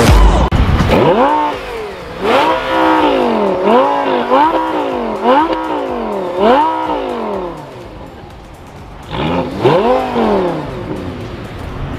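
Lamborghini Gallardo V10 revved while standing still: about six quick throttle blips in a row, each pitch rising and falling back, then after a short lull a final pair of blips.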